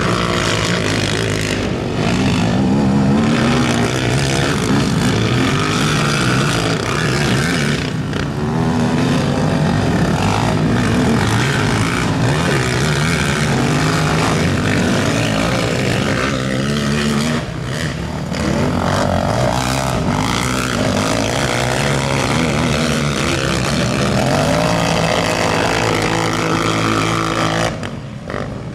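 Engines of several racing quads over 450 cc revving hard, their pitch rising and falling as the riders accelerate and back off around the dirt track.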